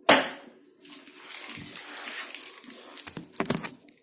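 A sharp knock, then about three seconds of rushing, hissing running water, with a few clicks near the end.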